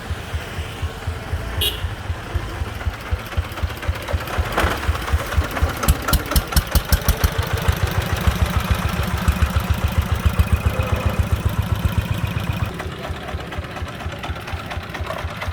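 Single-cylinder diesel engine of a công nông farm three-wheeler laden with sand, running with a rapid, even chugging beat. The beat grows louder about six seconds in and eases off again a little before the end.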